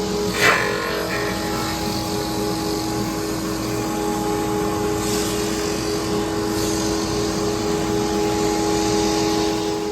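Electric woodworking power tool running steadily on a hickory slab, with a constant motor hum under a broad grinding hiss. A single sharp knock with a short ring about half a second in.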